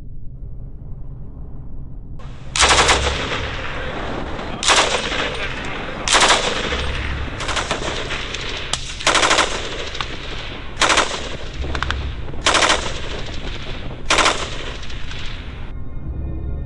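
Rapid automatic fire from a Japanese Type 99 light machine gun. It starts about two seconds in, comes as about seven louder bursts a second or two apart, and stops about a second before the end.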